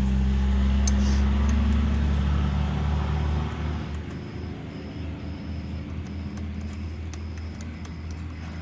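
A motor vehicle engine running steadily nearby, its low hum fading away about three and a half seconds in. Faint clicks of small metal parts being handled follow.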